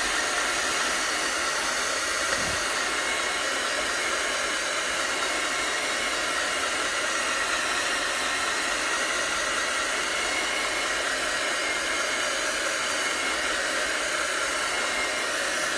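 Hair dryer blowing steadily at one setting to dry freshly screened ink on a fabric towel, switched off at the very end.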